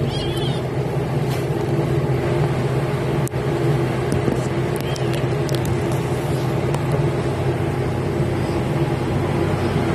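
Steady low mechanical hum of a running motor, with a few faint ticks about three and five seconds in.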